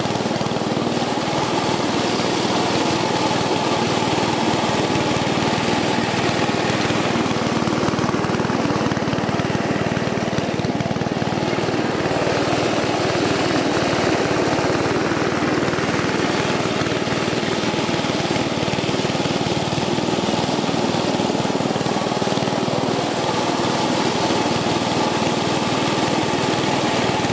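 ATCO self-propelled cylinder lawn mower's small petrol engine running steadily as the mower cuts grass; the freshly restored mower is working well.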